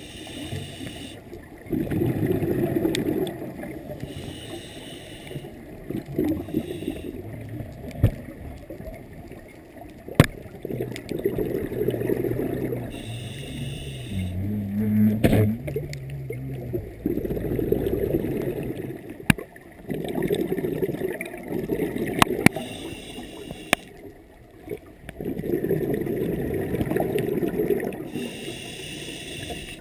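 Scuba regulator breathing underwater: a hiss on each inhale, then a gurgling rush of exhaled bubbles lasting two to three seconds, repeating in slow, uneven cycles. Scattered sharp clicks sound between breaths.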